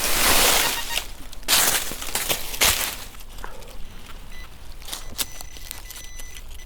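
Rustling and scraping in leaf litter and soil, loudest in the first few seconds, then a steady high-pitched tone from the XP Deus metal detector from about the middle on.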